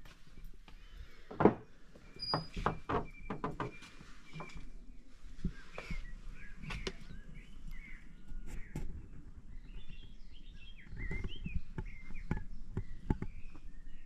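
Songbirds chirping and singing in short, quick calls through the second half, with irregular clicks and knocks throughout; the sharpest knock comes about a second and a half in.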